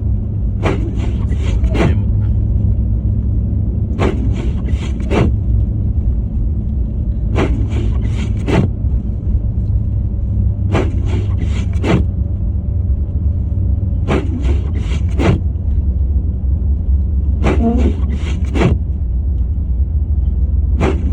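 Steady low rumble of a car driving, heard from inside, with a short run of four or so quick scraping clicks repeating about every three and a half seconds.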